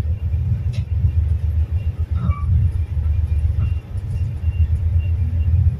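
Low, steady rumble of a tugboat's diesel engines running under power while towing, mixed with wind buffeting the microphone.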